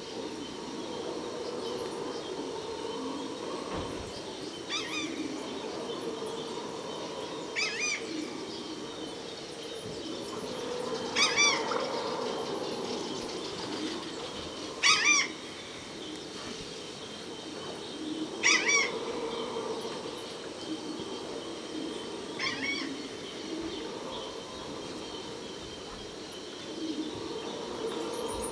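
Dawn chorus in the rainforest: a bird repeats a short call of quick curving notes six times, about every three to four seconds, over a steady chorus of insects. A thin, high descending whistle comes in near the end.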